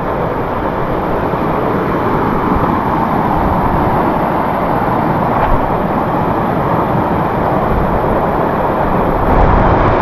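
Waterfall's falling water: a loud, steady rushing hiss.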